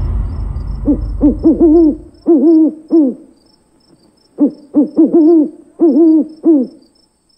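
Owl hooting: two runs of short, quick hoots, the second beginning about four and a half seconds in. Under the first hoots, a deep boom fades away.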